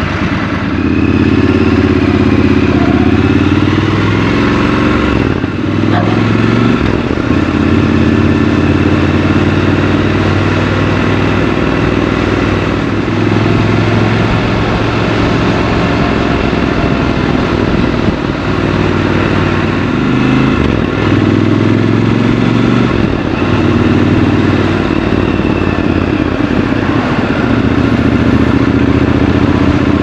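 Triumph Scrambler 1200 XC's 1200 cc parallel-twin engine running on the move, its pitch climbing and dropping in steps as the rider works the throttle and changes gear.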